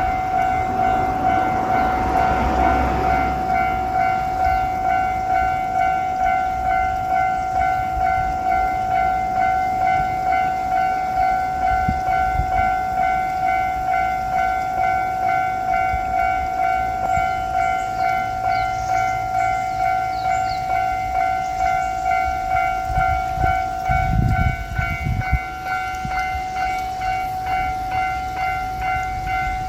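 Japanese railway level-crossing warning bell ringing steadily, its evenly repeating "kan-kan" strokes running throughout. Low rumbling from a JR Shikoku 1000-series diesel railcar comes in near the start and again about 24 seconds in.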